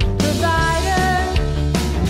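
Upbeat pop-rock worship song: a woman singing over electric guitar, bass and drums, with cymbal crashes at the start and near the end.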